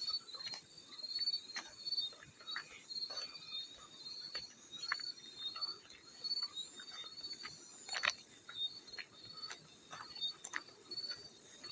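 Field cricket chirping in short, evenly repeated high chirps, with scattered small water splashes and drips; one louder splash about eight seconds in.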